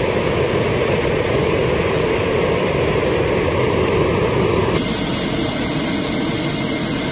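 Honeywell TFE731 turbofan jet engine running steadily on its own after a cool start, now starting normally with its fuel control replaced. About five seconds in the sound changes abruptly and a thin high whine stands out above the steady rush.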